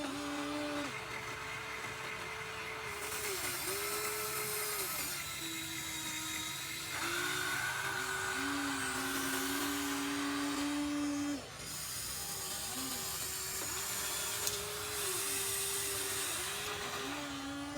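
Electric motors of a Huina 1593 RC excavator whining as it digs sand, the pitch stepping up and down and dipping under load as different functions are switched on and off.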